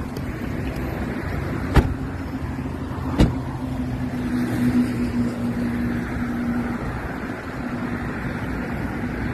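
Road traffic going by, with a steady low hum for a few seconds in the middle. Two sharp clicks come in the first few seconds.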